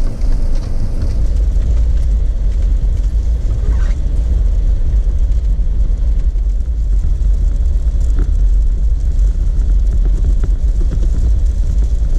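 Jeep Wrangler driving slowly along a dirt trail: a steady low rumble of engine and tyres, with a couple of faint knocks.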